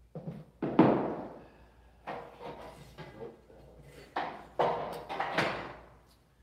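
About six sharp knocks of a hammer on a hollow steel door frame at the base of the jamb, unevenly spaced, each ringing briefly. The loudest is about a second in.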